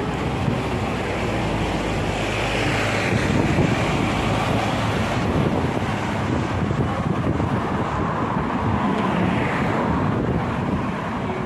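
Road traffic on a city street: steady engine and tyre noise, with two louder swells about two to four seconds in and again around nine seconds, and some wind on the microphone.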